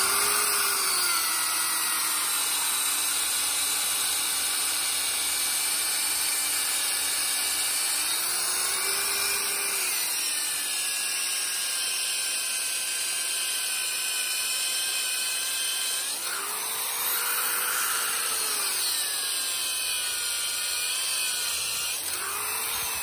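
Handheld wet diamond core drill running with water feed, its 3/4-inch core bit grinding down into concrete around a steel wedge anchor. The motor whines steadily, its pitch lifting briefly several times as the bit cuts.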